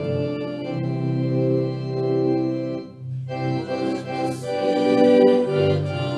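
Church organ playing slow, sustained chords that change every second or so, with a brief break about halfway through.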